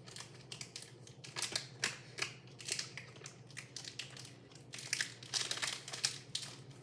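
Plastic packaging crinkling and crackling in irregular bursts as a new Rubik's cube is unwrapped and handled.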